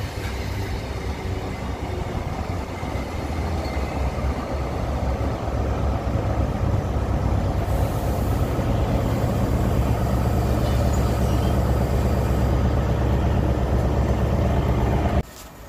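LNER InterCity 125 (HST) running past: the Mark 3 coaches roll by with a steady rumble, then the rear Class 43 power car's diesel engine grows louder as it passes. The sound cuts off suddenly near the end.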